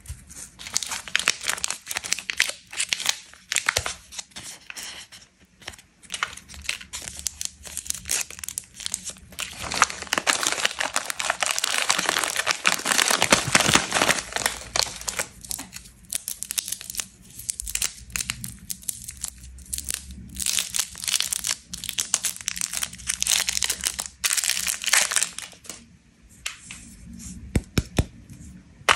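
Plastic candy wrappers crinkling and tearing as sweets are unwrapped by hand, a dense crackle that goes on and off. It is loudest in a long stretch around the middle, where an Oreo Wafer Roll wrapper is being torn open.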